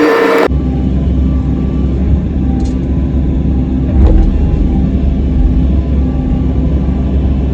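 A high whirring noise cuts off half a second in, giving way to a compact excavator's diesel engine running with a steady low rumble. There is a single clank about four seconds in.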